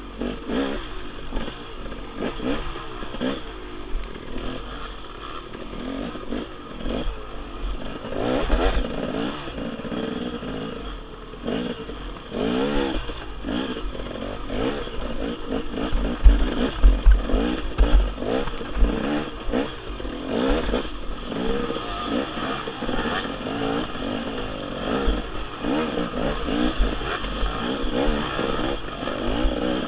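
Off-road dirt bike engine revving up and down in short bursts as it picks its way over rough, rocky trail, with thumps and clatter from the bike hitting the ground.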